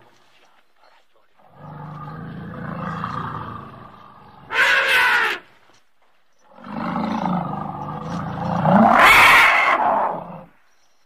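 Elephant sound effect, edited: two calls, each a low rumbling roar that swells into a loud, high trumpet blast near its end.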